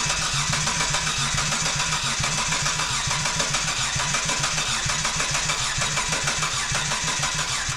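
Mitsubishi FTO's V6 engine cranking on its starter motor with an even, rhythmic churn, turning over without catching, then cutting off abruptly near the end.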